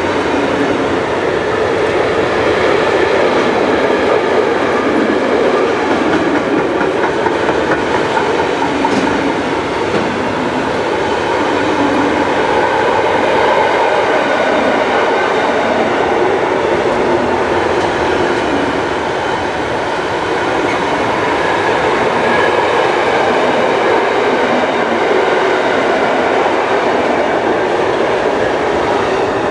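Long intermodal freight train of pocket wagons carrying semitrailers rolling past at close range, a steady noise of wheels running on the rails.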